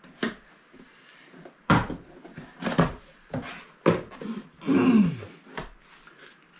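Cardboard product box being opened by hand: a string of sharp knocks and rustles as the lid and flaps are pulled open and folded back, with a longer scraping rustle of cardboard about five seconds in.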